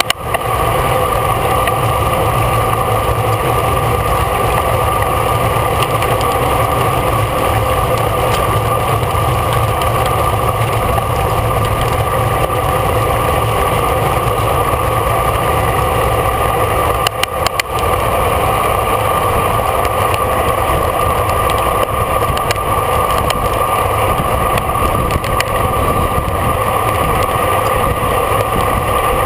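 Steady wind and road rush on a bike-mounted camera's microphone while riding in a bike race, with a constant hum over it and a brief dip with a few clicks partway through.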